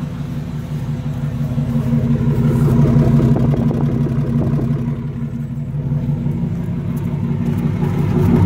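GMC Yukon's V8 engine idling steadily, freshly filled with new oil and left running so the oil circulates. It swells slightly about three seconds in.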